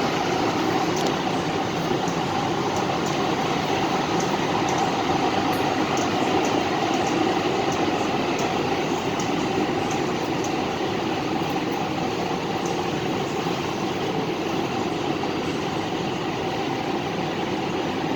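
Steady running noise of a light-rail train heard from inside the car, with a faint steady tone over it.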